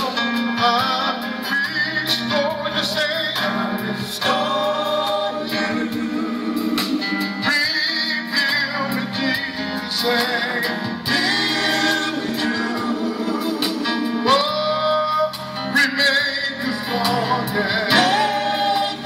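Gospel song performed live: a band playing under singing, with voices bending and holding long notes.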